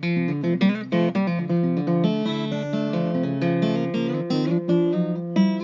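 Guitar music: plucked notes in quick succession ringing over held lower notes.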